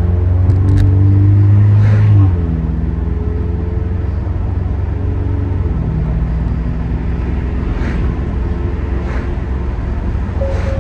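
Straight-piped exhaust of a 2022 Acura TLX's 2.0-litre turbocharged four-cylinder, with downpipe and muffler delete, pulling under load for about two seconds, then the note drops suddenly as the throttle eases and it runs on at a lower, steady drone.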